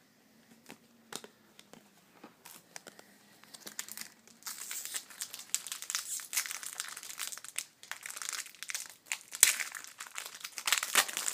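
Trading card pack wrapper crinkling as it is torn open and handled. A few light clicks at first, then dense crinkling from about four seconds in, with the loudest crackles near the end.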